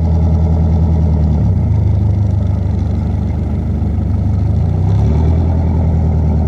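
A boat engine running steadily at low revs, a deep hum whose note shifts slightly about a second and a half in and again about five seconds in.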